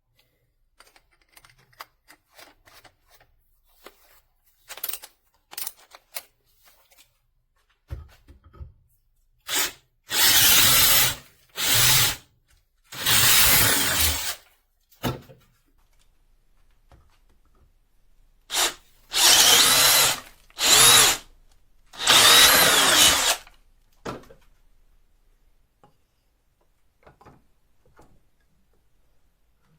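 Power drill boring into wood with a 7/16-inch auger bit, run in short bursts of the trigger: two groups of about four bursts each, the longest lasting about a second and a half. A few light handling clicks come before the first group.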